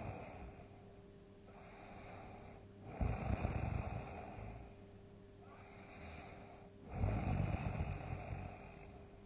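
A person snoring heavily. Two loud, rough snores come about three and seven seconds in, each lasting about a second and a half, with quieter breaths between.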